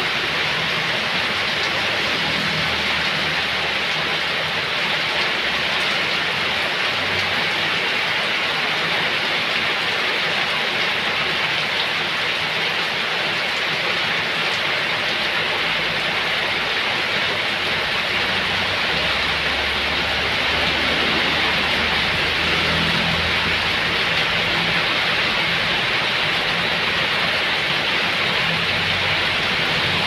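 Heavy rain pouring onto flooded ground, a dense, steady hiss. In the second half a low engine rumble builds underneath as a truck approaches through the rain.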